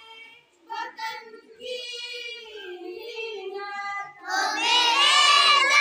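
Young children singing a prayer song together, thin at first, then louder and fuller from about four seconds in as more voices join.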